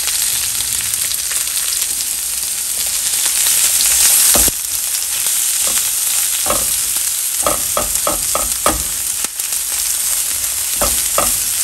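Boiled potato chunks and diced onion sizzling in hot oil in a nonstick frying pan, the sizzle dropping suddenly about four seconds in. In the second half a spatula scrapes and knocks against the pan in a series of short strokes.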